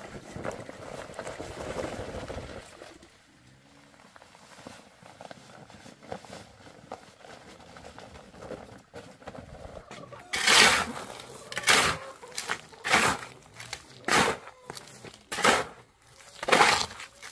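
Cement powder pouring from a bag onto a sand pile with a soft rush, then, from about ten seconds in, a shovel blade scraping and scooping into gritty sand and cement, about one stroke a second, while the dry mix is turned. The shovel strokes are the loudest part.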